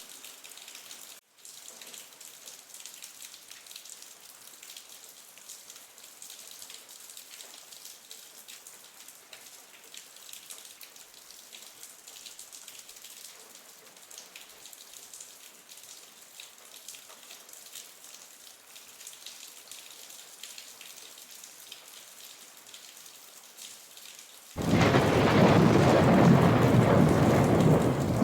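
Rain falling: a light, even patter and hiss of drops, broken by a split-second gap just after the start. About 24 seconds in it switches abruptly to a much louder, deeper rush of heavy rain with a low rumble.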